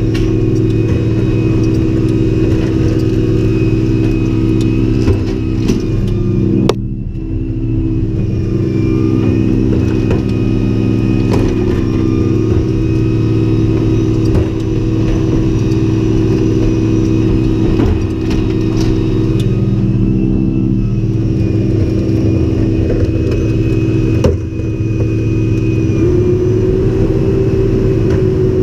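Garbage truck's engine, a Freightliner M2 on natural gas, running steadily while stopped, heard from inside the cab. Its pitch rises slightly near the end. There is a sharp knock about a quarter of the way in and another late on.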